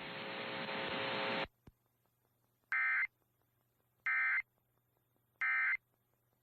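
A hiss of static that swells for about a second and a half and cuts off. Then three short, identical warbling data bursts about a second apart: the EAS end-of-message (EOM) tones that close an emergency alert broadcast.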